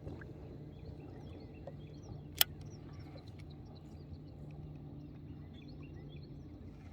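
Open-air background on the water: a steady low hum with small birds chirping faintly throughout, and one sharp click about two and a half seconds in.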